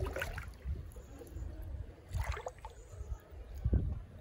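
Bare feet wading through shallow stream water over rock, with splashes about 0.2 s, 2.3 s and 3.7 s in, over a steady low rumble.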